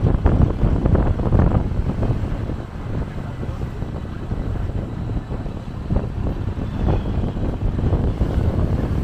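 Vehicle noise on the road, a steady low rumble with wind buffeting the microphone.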